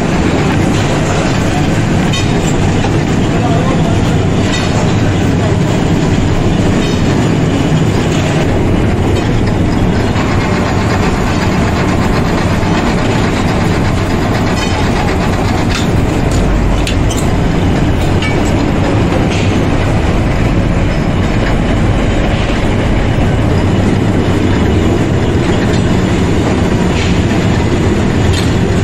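Loud, steady mechanical rumble with irregular clatter, as of workshop machinery running while truck U-bolts are made.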